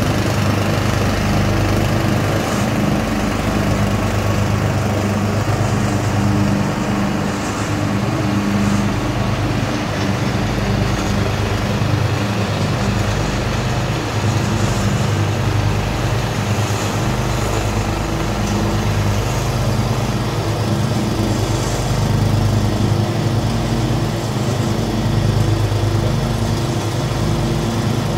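A Craftsman 12.5 hp riding mower and a 60-inch Swisher pull-behind mower with its own 13.5 hp engine, both running steadily under load while cutting long grass.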